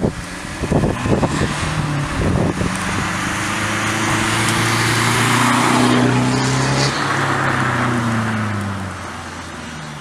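Alfa Romeo Giulietta 1.6 JTDm-2 four-cylinder turbo-diesel with its electric exhaust bypass valve open, driving past. The engine note grows louder as the car approaches, is loudest about six seconds in as it passes, then drops in pitch and fades as it drives away. A few low thumps come in the first two seconds.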